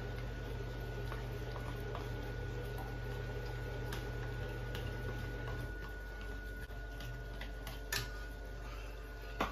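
Light clicks and taps of a utensil scraping the last egg yolk and milk from a plastic bowl into a saucepan, scattered and irregular, with one sharper knock about eight seconds in. Under them runs a steady low hum.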